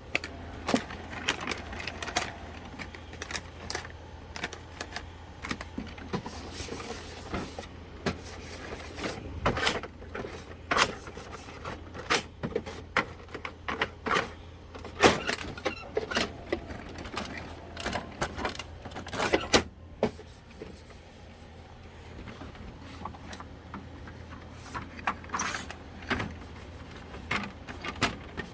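HP Officejet Pro 8710 inkjet printer running its initialization, the printhead pumping ink, with a steady low motor hum. Irregular clicks and knocks from handling and cleaning dust out of the printer sound over it throughout.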